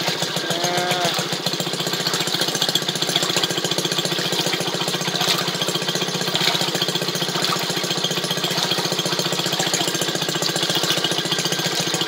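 The small two-stroke gasoline engine of an old Maytag washing machine running steadily with a fast, even firing beat, driving the agitator as it churns water and clothes in the tub.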